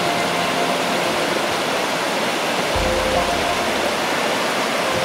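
Snowmelt stream rushing over small stepped cascades: a steady, even rush of running water.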